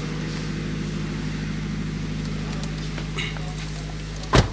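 A steady low hum made of several fixed tones, then, near the end, one sharp loud thump of a car door being shut.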